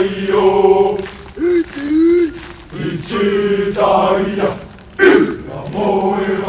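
Group of men chanting loudly in unison, a haka-style war chant, delivered in phrases with short breaks between them.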